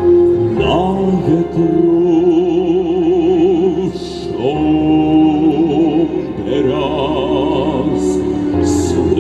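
Music: a slow song passage without words, a melody with heavy vibrato over a sustained accompaniment.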